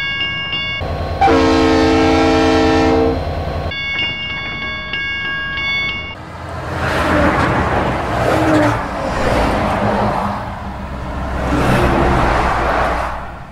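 Level-crossing warning bell ringing in a fast, even pattern, broken about a second in by a long blast of a train horn. The bell resumes briefly, then stops about six seconds in, and a loud rumble follows that swells twice.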